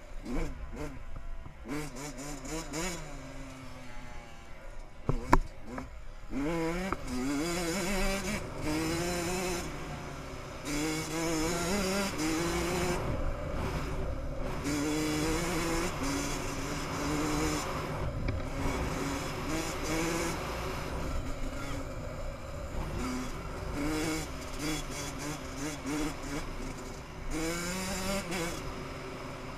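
Dirt bike engine revving up and down over and over as it is ridden, with a sharp knock about five seconds in.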